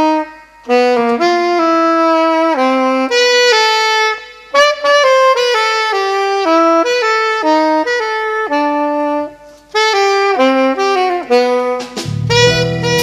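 Saxophone playing a solo melody, one note at a time, with two brief pauses for breath. Near the end a lower accompaniment comes in under it.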